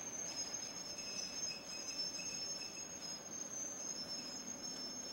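Crickets trilling steadily in two high pitches over a faint low rumble.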